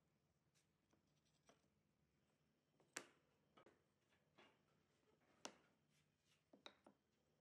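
Faint light taps and brief scrapes of thin wooden triangles being set down and slid into place on a wooden tabletop. The clearest taps come about three seconds in and again about five and a half seconds in, then a quick cluster of three near the end.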